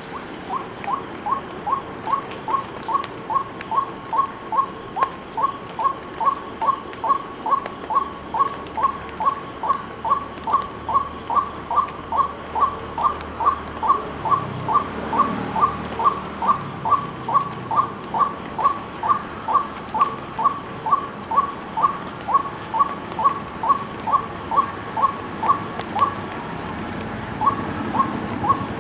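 White-breasted waterhen calling: one short note repeated in a long, monotonous run, about twice a second, with a brief break near the end before the series starts again.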